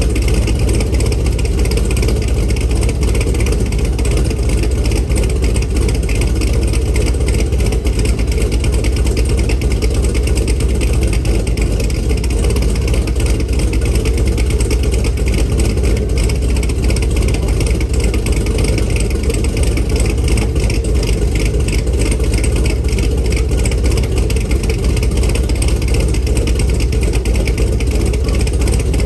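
Camaro SS's LS3 V8, fitted with a Stage 3 cam, long-tube headers and the factory NPP exhaust, running steadily with a fine rhythmic pulse.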